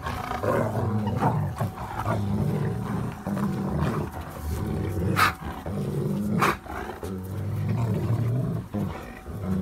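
German Shepherds growling in play as they tug on a rope toy: a low, rumbling growl in long runs, with two short sharp sounds about five and six and a half seconds in.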